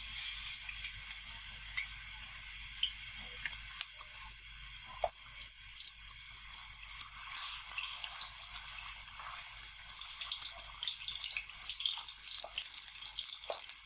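Minced chicken (keema) sizzling in hot oil in a kadhai. A loud hiss as it goes in at the very start, then a steady sizzle with scattered crackles and pops as it fries over a low flame.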